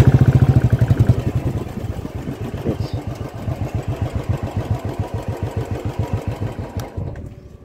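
Royal Enfield Classic 350's single-cylinder four-stroke engine running at low speed with a quick, even beat. It is loudest in the first second, then steady, and dies away near the end.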